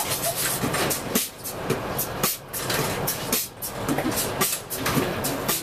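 Subway train running, the car rattling and clattering loudly on the tracks, with a guitar being strummed over it.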